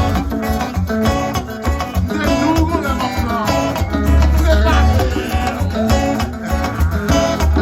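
Live twoubadou band music, the Haitian troubadour style: acoustic guitar plucking a steady line over a strong bass.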